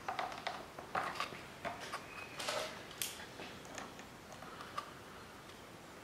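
Rubber fuel hoses being worked onto a new plastic inline fuel filter by hand, then pliers gripping a wire spring hose clip: a string of small clicks, taps and rubs, thinning out over the last second.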